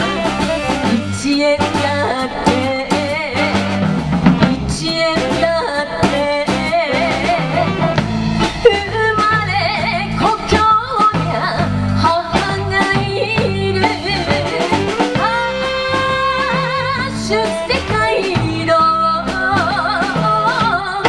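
Live band playing: a woman singing into a microphone over electric guitars, saxophones and a drum kit.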